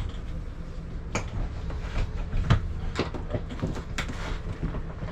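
Several sharp knocks and clacks from fittings in an RV's interior being handled, over a steady low hum.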